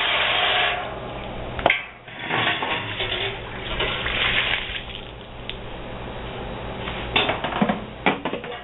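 Garden hose spray nozzle blasting water into a stainless steel pot, cutting off about a second in. Shorter rushes of water follow, then a few sharp metallic clanks near the end.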